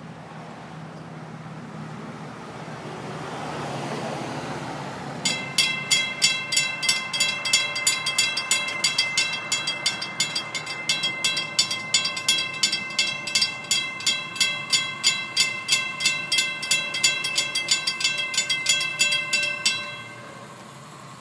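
Railroad grade-crossing warning bell ringing in even strikes, about three a second, as the crossing gates come down to warn of an approaching train. It starts about five seconds in and stops abruptly shortly before the end, once the gates are down.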